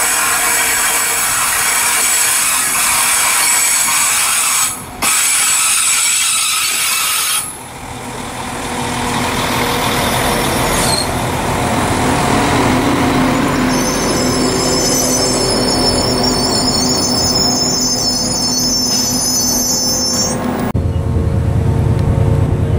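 Northern passenger train running through the station, its wheels squealing with wavering high whines for several seconds in the middle. Near the end a TransPennine Express Class 802 train passes with a low steady hum.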